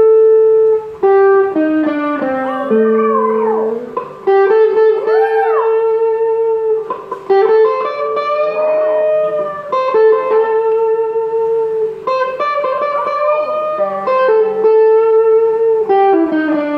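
Guitar playing a slow lead melody of long held notes, with a small dog howling along several times in wavering calls that rise and fall in pitch.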